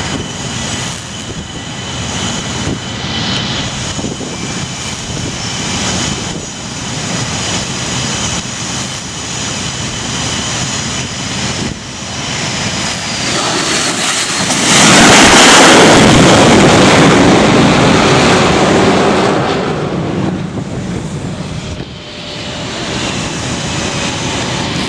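Jet noise on an aircraft carrier flight deck, with a steady high whine under it; about fifteen seconds in an F/A-18 landing on the deck brings a sudden, much louder jet roar that fades away over several seconds.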